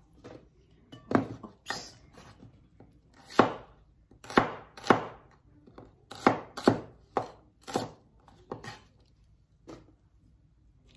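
Chinese cleaver cutting shallots on a wooden chopping board: about a dozen irregular, sharp knocks of the blade striking the board.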